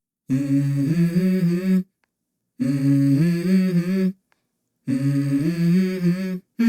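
Background music: the opening of a song, a short melodic phrase of low sustained notes played three times with brief silences between.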